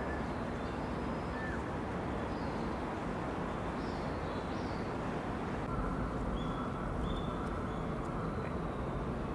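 Steady outdoor background rumble with a few short, high chirps over it.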